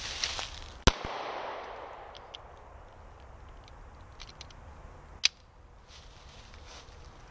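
Two 9 mm pistol shots from a Taurus PT111 G2, about four and a half seconds apart; the first leaves an echo that dies away over about a second. Faint small clicks can be heard between the shots.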